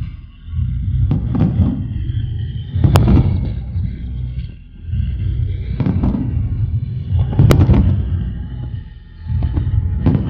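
Aerial firework shells bursting in a professional display: deep booms in three swelling waves, with two sharp cracks about three and seven and a half seconds in.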